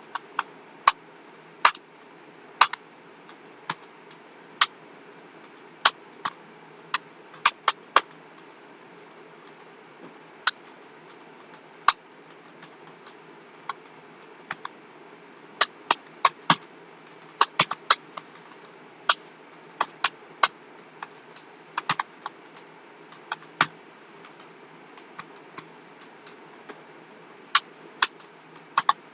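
Computer keyboard keys clicking irregularly, with uneven gaps, as someone types a timed typing test, over a steady low hum.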